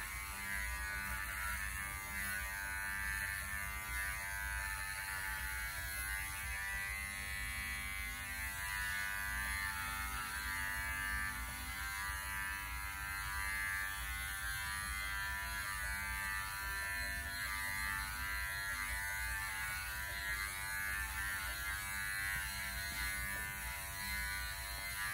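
Electric dog grooming clippers running steadily, going back over a dog's cottony coat.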